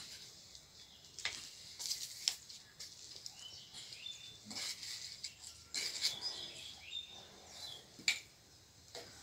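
Scattered scrapes, rustles and knocks of soil being worked by hand in terracotta pots, with a few short bird chirps.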